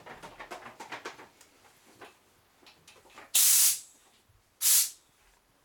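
Two loud blasts of compressed air from an air blow gun on a coiled air hose, shooting a peanut: the first about half a second long, the second shorter, about a second later.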